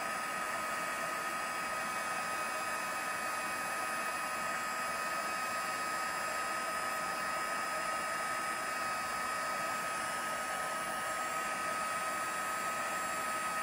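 Craft heat gun of the paper-crafting embossing kind blowing hot air steadily, with a constant whine over the rush of air, shrinking heat-shrink tubing onto drawstring ends to form aglets.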